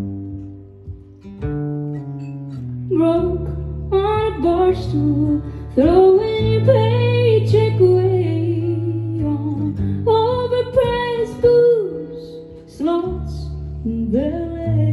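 A woman singing a slow song with her own acoustic guitar accompaniment. For the first few seconds the guitar plays alone, then her voice comes in with long held phrases, pausing briefly near the end.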